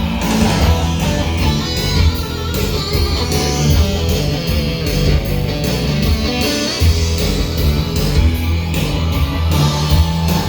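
Korg X3 synthesizer playing back a multi-part sequence: a guitar patch over bass and a steady drum beat.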